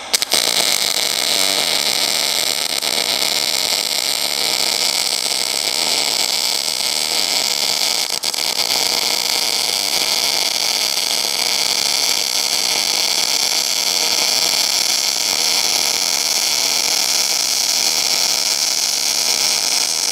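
MIG welding arc from a YesWelder DP200 in standard, non-pulse mode, starting suddenly and then running steadily as an even noise while a bead is laid.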